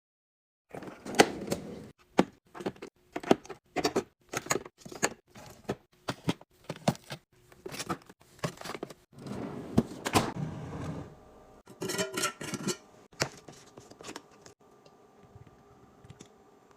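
Containers and packages being handled and set down while restocking a fridge: a quick, irregular run of clacks and knocks with some rustling. It stops about fifteen seconds in, leaving a faint steady hum.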